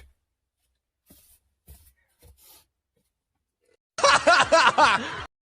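A burst of laughter, about a second and a half of quick pulsing voice near the end, after a few faint sounds.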